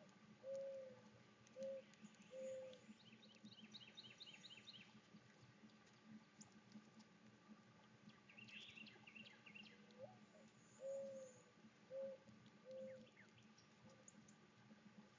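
Faint low hooting call from a bird, given twice: a short rising note, a longer note, then two shorter ones. Between the two calls, small birds chirp in a quick high series, and another high call follows.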